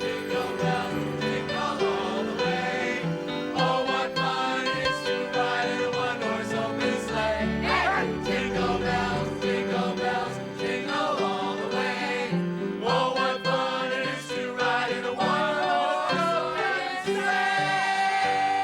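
Television show opening theme music, a choir singing over a full instrumental backing.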